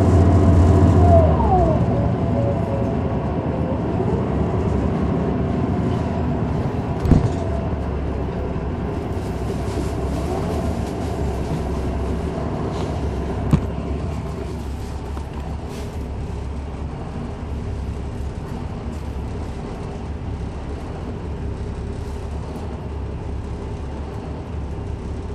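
Interior sound of a Neoplan AN459 articulated diesel bus under way: the Caterpillar C9 ACERT engine hums steadily through the ZF Ecomat automatic transmission, with two sharp knocks of the body about 7 and 13 seconds in. The sound eases a little after about halfway.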